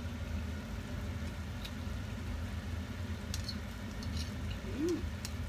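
A steady low motor hum, like a small fan running. A few faint clicks come in the middle, and a brief low vocal sound, a short rising-and-falling hum, comes near the end.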